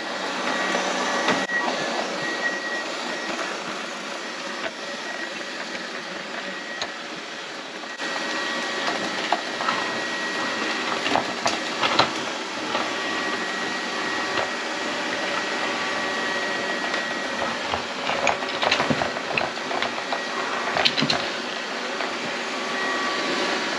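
Lefant M210B robot vacuum running, a steady low whir with a faint high whine, called super low. Scattered clicks and knocks come through it, and it gets a little louder about a third of the way in.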